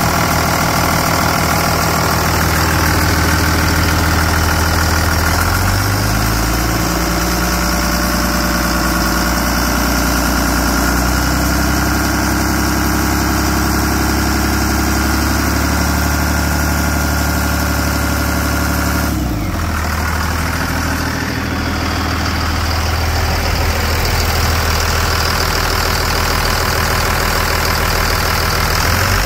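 Cummins ISB 5.9-litre inline-six turbo diesel idling, with its pitch shifting slightly a few times. A short sharp noise cuts in about two-thirds of the way through.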